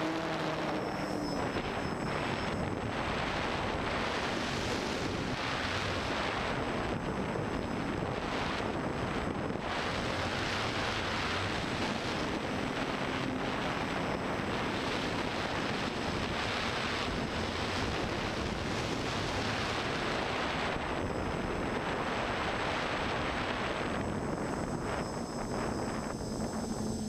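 FPV quadcopter's brushless motors and propellers in fast flight, heard from the onboard camera: a steady rush of wind and prop wash over a motor whine that rises and falls in pitch with the throttle.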